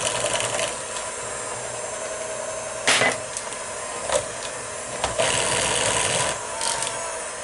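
Electric hand mixer running steadily with a constant whine, beating butter into cake batter, with sharp knocks of the beaters against the bowl about three and four seconds in.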